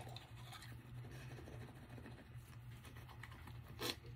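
Faint scratchy scrubbing of a soft nano-bristle toothbrush working over teeth, with one brief louder sound near the end.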